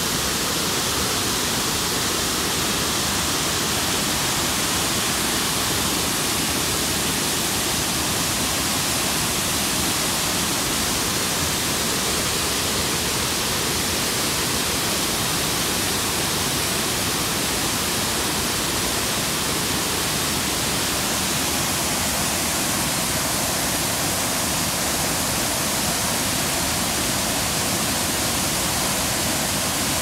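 Broad curtain waterfall pouring into a river pool: a steady, even rush of falling water that holds at the same level throughout.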